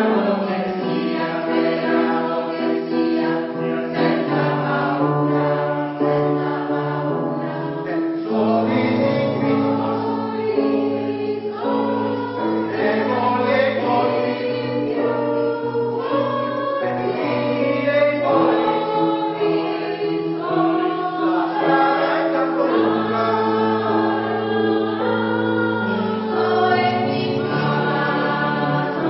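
Polyphonic choir singing in several voice parts, holding sustained chords that change every few seconds.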